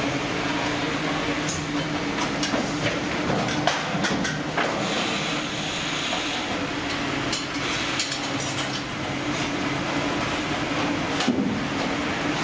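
Fish-processing line machinery running: a steady mechanical hum with a low drone, with scattered metallic clicks and clanks over it.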